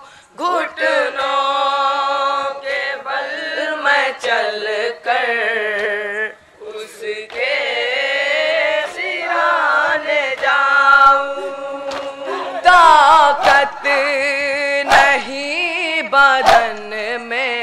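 Male voices chanting an Urdu noha, a Shia lamentation, in a slow sung melody with long held notes, accompanied by sharp chest-beating slaps (matam) from a group of mourners.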